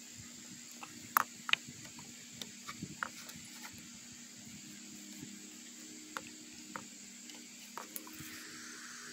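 A few sharp clicks and light taps from hands handling parts at a dirt bike engine's spark plug, the loudest two about a second in, over a faint steady hiss and low hum.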